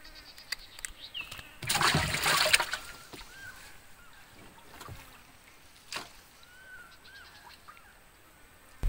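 A splash of river water beside a small wooden canoe, lasting about a second, near two seconds in. A few short, faint bird chirps follow.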